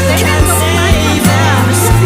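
Background music with a steady beat, a deep bass line and a gliding vocal-like melody.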